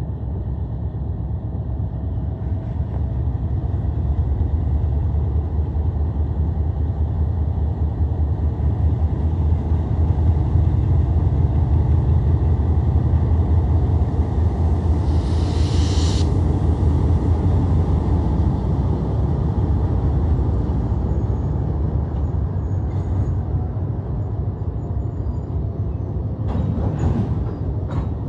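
Diesel-electric locomotives pulling slowly past with a deep, steady engine rumble that swells as they go by. About halfway through there is a hiss of air lasting about a second.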